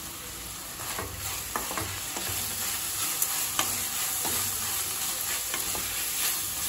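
Sliced onions sizzling in oil in a stainless steel kadai as they are stirred and tossed with a spatula, the spatula scraping and tapping against the pan every second or so from about a second in.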